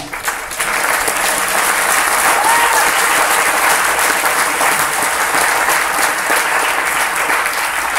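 Audience applauding steadily: many people clapping together.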